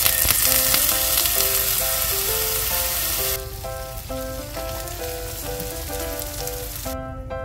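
Mozzarella cheese sizzling loudly as it hits a hot cast-iron sizzling platter; the sizzle drops off sharply about three and a half seconds in.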